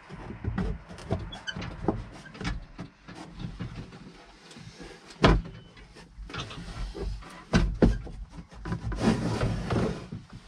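Irregular knocks, clicks and rattles of hands handling a backhoe's pilot control pedestal and the parts around it in the cab. One sharp knock stands out about five seconds in, and a denser run of knocks and rattles comes near the end.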